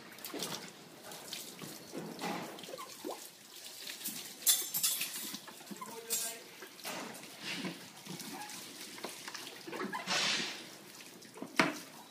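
Water splashing and pouring in a plastic basin and an inflatable paddling pool, in irregular bursts.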